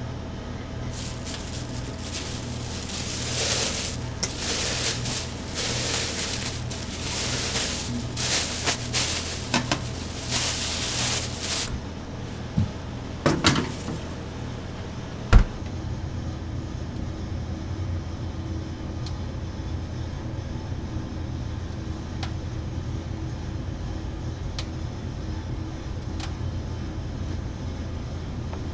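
Food-prep sounds in a small toast-shop kitchen: a run of short rustling or scraping bursts, a few clicks and one sharp knock about fifteen seconds in, then only a steady low hum of the shop.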